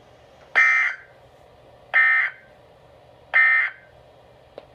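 Emergency Alert System end-of-message signal: three short, buzzy data bursts about 1.4 seconds apart, marking the end of the warning broadcast. A faint click follows near the end.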